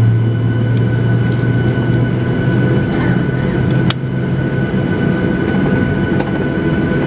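Steady cabin drone inside a Boeing 737-800 on the ground: a constant rushing noise with a low hum and a thin higher whine, the low hum easing about halfway through, and a few faint clicks.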